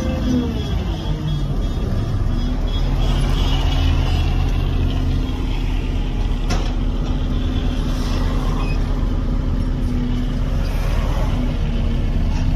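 Tata Prima 2830.K concrete mixer truck's diesel engine running under way, heard from inside the cab with road noise. The engine note drops about a second in, then holds steady.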